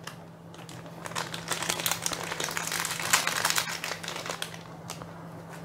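Thin clear plastic pouch crinkling and crackling in the hands as it is handled and squeezed to get the small tracker tag out. The crackling is densest from about one second in and dies away after about four and a half seconds.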